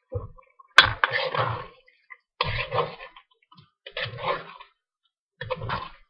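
Metal spatula stirring chicken and vegetables in a steel wok: a sharp clank against the pan about a second in, then four scraping strokes about a second and a half apart.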